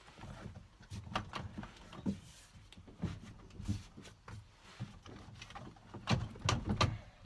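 Plastic interior trim panel of a minivan sliding door being handled and worked loose from its clips: irregular clicks, knocks and rubbing, with the loudest cluster of knocks near the end.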